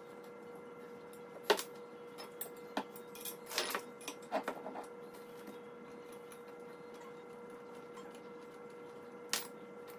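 Light clicks and taps of a metal chair frame and its hardware being handled during assembly, several in the first half and one near the end, over a faint steady hum.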